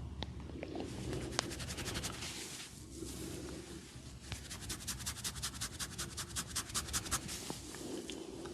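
Rapid scratching of hair and scalp during a head massage, about eight strokes a second, in two runs with a short break around three to four seconds in.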